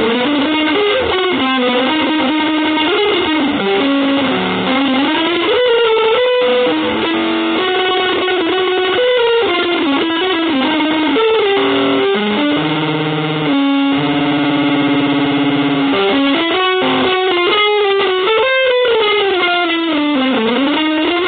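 Music: a single electric guitar line with effects, sliding and bending between notes, with a long held note about two-thirds of the way in.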